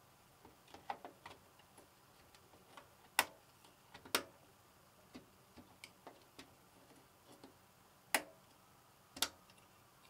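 Memory modules being pressed into an Asus motherboard's RAM slots, the retention clips snapping shut: two pairs of sharp clicks, about a second apart within each pair, with fainter plastic ticks of handling between.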